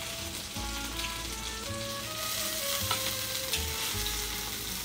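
Chicken thighs sizzling in hot oil and rendered fat in a wide stainless-steel paella pan. Metal tongs click and scrape against the pan a few times as the pieces are lifted out. Background music plays underneath.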